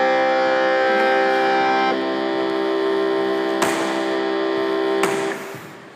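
Background music: a held chord of steady tones that shifts about two seconds in, then fades out near the end. Two sharp clicks come partway through.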